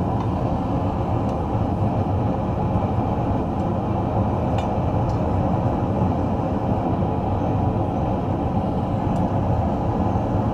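Gas forge burner running steadily, an even low rush of noise, with a couple of faint clicks of metal.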